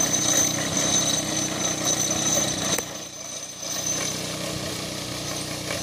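VST Mitsubishi mini tractor engine running steadily as it drives with its mounted crop sprayer working, with a steady high whine throughout. A sharp click about three seconds in, after which the sound is quieter.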